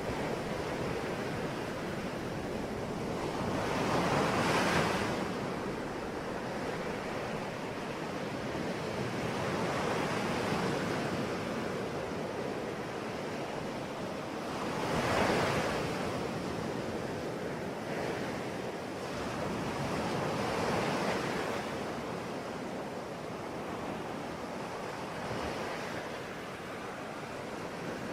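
Ocean waves breaking and washing on a shore, a continuous rush that swells at each breaker, about every five or six seconds, strongest about 4 and 15 seconds in.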